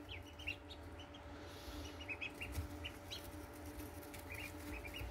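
A brood of four-day-old blue Indian Runner ducklings peeping quietly, with short, high peeps scattered through, often several a second, as they feed.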